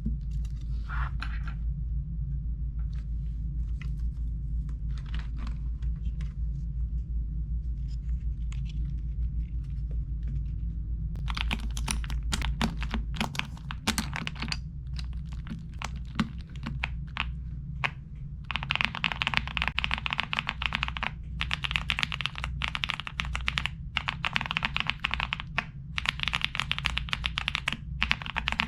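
Typing on a Galaxy 65 mechanical keyboard fitted with XVX crystal jelly keycaps: a few scattered keystrokes at first, then steady fast typing from about eleven seconds in, denser from about eighteen seconds. A low hum runs underneath through the first half.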